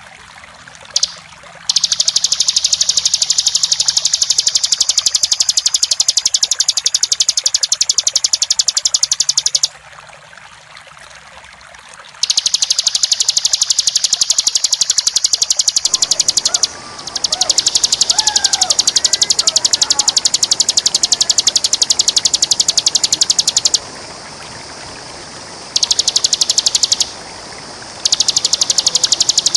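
Bar-winged prinia (ciblek) singing its rapid, high-pitched buzzing trill ('ngebren') in long unbroken bursts of up to about eight seconds, with short pauses between. Fainter calls of another bird join in about halfway through.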